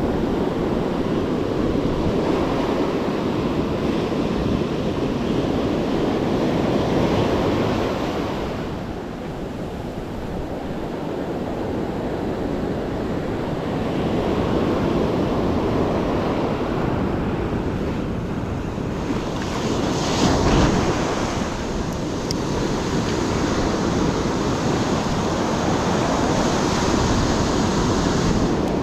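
Ocean surf breaking and washing up a sandy beach in a steady rush that swells and ebbs, with wind buffeting the microphone. A louder burst comes about two-thirds of the way through.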